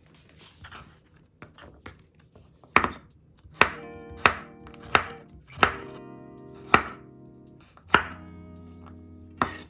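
Kitchen knife chopping on a cutting board: about eight sharp cuts at an uneven pace, under a second or so apart, starting about three seconds in.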